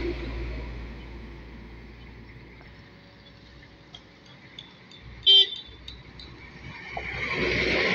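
Loaded trucks passing close by: the engine and tyre noise of one truck fades away, a horn gives one short toot about five seconds in, and the noise of the next truck builds near the end.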